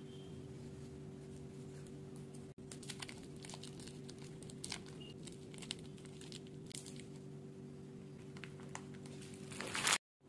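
Candy wrapper crinkling and tearing as a foil-lined wrapper is opened by hand, in scattered crackles, with a louder crinkle near the end. A steady low hum runs underneath.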